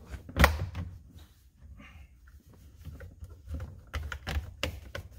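Toyota Sienna's lower plastic steering column cover being fitted onto the column: one sharp knock about half a second in, then a run of lighter plastic clicks and taps near the end.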